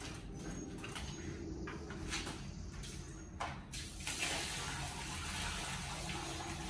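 A few footsteps, then water pouring out of a full plastic five-gallon bucket onto a concrete driveway, a steady rushing splash starting a little under four seconds in.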